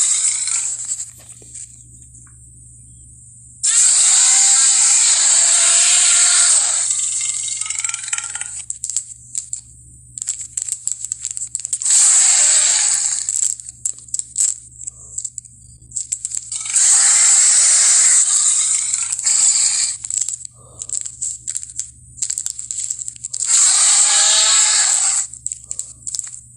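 Dinosaur monster sound effects, made from Carcharodontosaurus roars and Godzilla growls and snarls: about five growls or roars of one to three seconds each, with crackling clicks in the gaps between them.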